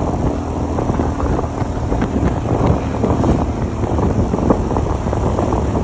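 Motorcycle riding along at road speed, its engine running under heavy wind buffeting on the microphone.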